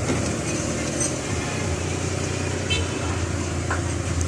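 Steady background vehicle noise: a low engine hum and traffic, with a few light clicks.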